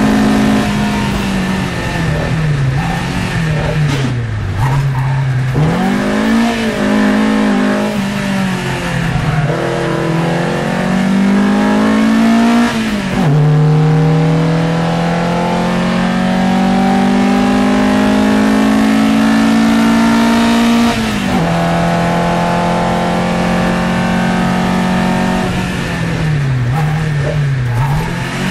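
Matra Jet 6's Renault Gordini 1296 cc four-cylinder engine at racing speed, heard from inside the cockpit. The revs climb in long pulls through the gears, dropping suddenly at each upshift, and rise and fall unevenly with lifts and downshifts around the corners near the start and near the end.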